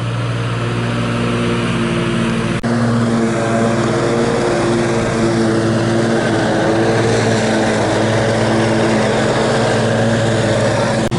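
John Deere zero-turn riding mower running steadily while mowing, its engine giving a constant pitched hum that grows slightly louder over the first few seconds. There is a brief dropout about two and a half seconds in.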